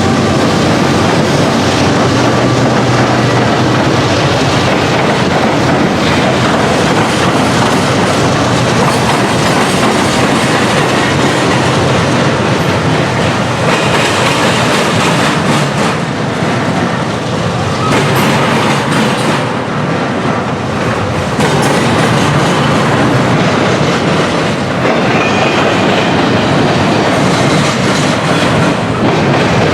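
A CSX freight train of intermodal cars, autoracks and manifest cars rolling past close by. Its wheels clatter steadily over the rail joints, with the odd faint squeal.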